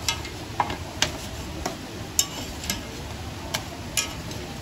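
Light, irregular clicks and taps of cooking utensils working at a pan or griddle, about nine in a few seconds, over a steady low background noise.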